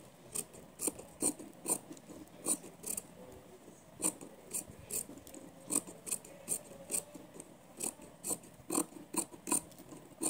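Large tailor's shears snipping through thin cloth in a steady run of short cuts, about two a second with a brief pause about three seconds in, trimming the excess fabric from around a stitched seam.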